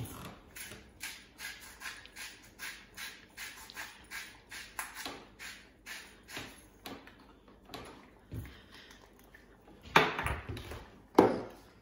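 Salt grinder twisted by hand over a saucepan, grinding in an even run of short crunches about three a second that stops partway through. Near the end come two loud sharp knocks, the loudest sounds here.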